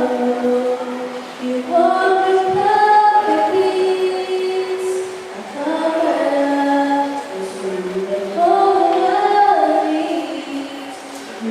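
Several voices singing a cappella in harmony, with long held notes and no accompaniment.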